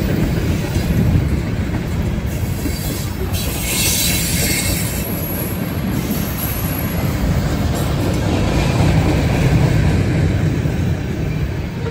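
CSX freight train's hopper and tank cars rolling past, a continuous low rumble of steel wheels on the rails, with a short burst of high hiss about three and a half seconds in.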